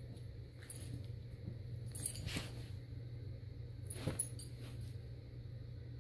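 A dog and a kitten moving about on blankets: soft rustling with a few brief scuffles, about two seconds in and again about four seconds in, over a steady low hum.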